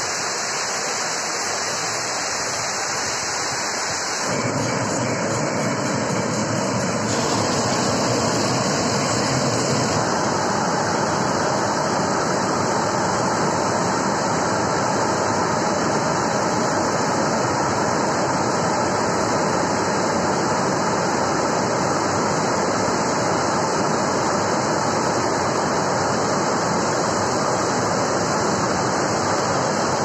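Water pouring over a low concrete weir: a steady rush of falling and churning water, which grows fuller and louder about four seconds in.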